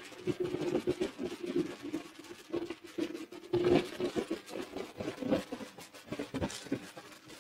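Wind buffeting the microphone of a motorcycle moving at road speed, in irregular gusts over a steady drone from the bike.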